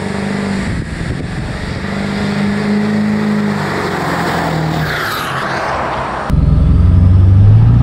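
Ford Super Duty pickup's 7.3 L Powerstroke turbo-diesel V8 driving up and passing by. A high turbo whistle falls in pitch as the truck goes past. About six seconds in, the sound switches abruptly to the same engine heard louder and steady from inside the cab.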